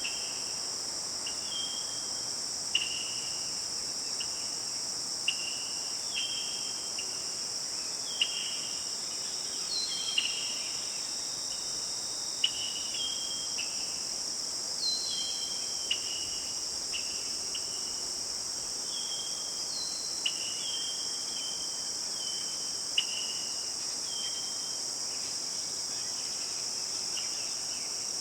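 Steady high-pitched chorus of crickets, with short chirping calls repeating about once a second a little lower in pitch and a sharp click now and then.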